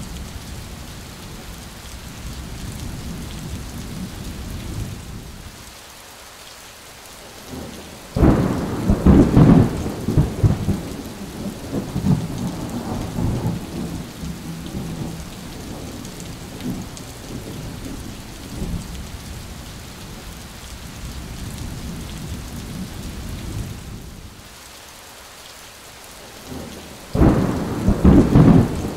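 Heavy rain falling steadily, with two sudden cracks of thunder that rumble on for several seconds: one about eight seconds in, the other near the end.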